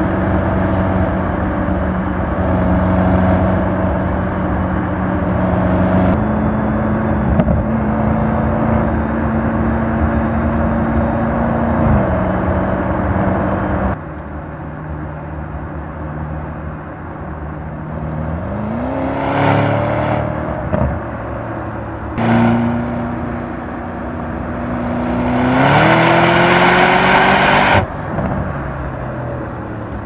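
2025 Audi RS Q8 Performance's twin-turbo V8 on the road. It first cruises at a steady note over road noise, with a small step up in pitch about six seconds in. After a cut it accelerates twice, the revs climbing each time, and the second run cuts off suddenly near the end.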